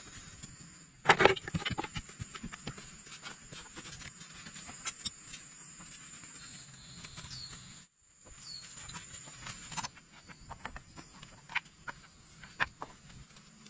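Scattered clicks and knocks, the loudest a quick cluster about a second in, over a steady high-pitched tone.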